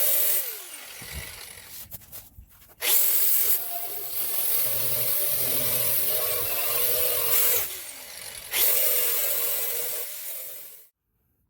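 Handheld rotary power tool working the sheet metal of a car trunk lid to strip rust and paint. It runs in bursts: it spins down with a falling pitch about half a second in, starts again abruptly about three seconds in, pauses briefly near eight seconds, then runs again and stops near the end.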